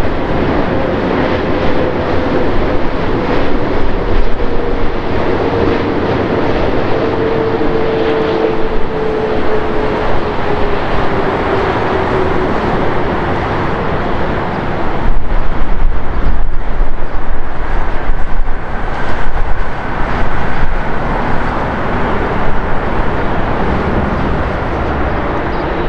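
Boeing 747-8i jet engines passing on landing approach: a steady whine over broad engine noise, the whine sinking slowly in pitch. About fifteen seconds in, the sound grows into a louder deep rumble as the jet lands and rolls out on the runway.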